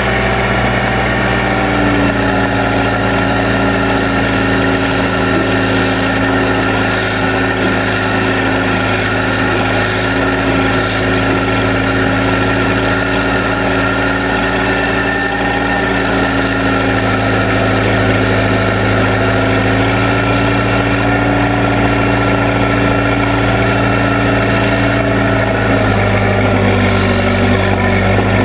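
Case 580B backhoe's engine running steadily, its pitch rising slightly about two seconds in and dropping back near the end.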